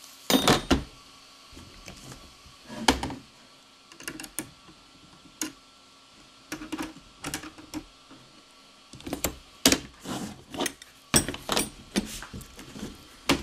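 Scattered clicks and clinks of small metal ukulele tuner hardware being handled and fitted onto the headstock with the fingers and a small metal tool, some single, some in quick runs.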